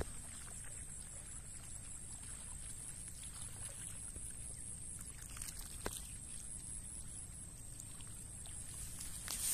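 Faint shoreline ambience: a steady high insect drone over a low wind and water rumble, with a couple of small handling clicks, the first near the start and another about six seconds in.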